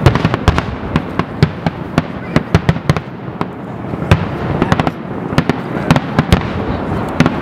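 Aerial firework shells bursting one after another, several sharp bangs a second over a continuous din of reports.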